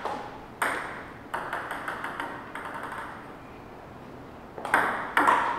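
Table tennis ball clicking off paddles and table in a rally: a run of sharp hits, a quiet gap midway, then louder hits again near the end.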